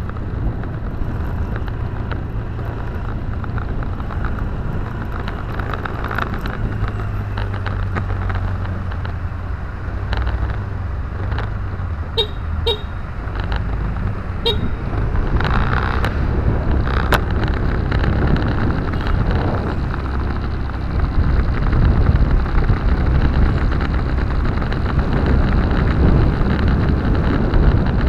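Car engine and road noise heard from inside the cabin, growing louder over the second half as the car speeds up on the open road. A few short horn toots sound in the middle.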